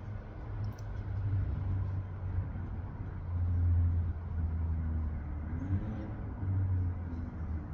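Low, steady motor-like rumble, swelling a little about three and a half seconds in.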